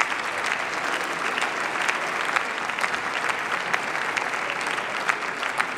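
Members of parliament applauding together: steady clapping from many hands that welcomes a guest.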